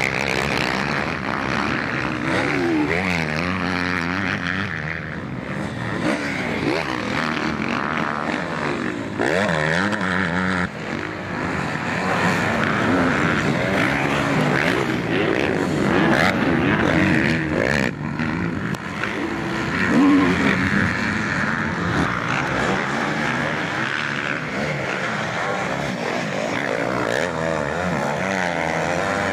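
Several motocross bike engines racing on the track, overlapping, their pitch rising and falling over and over as riders open and close the throttle.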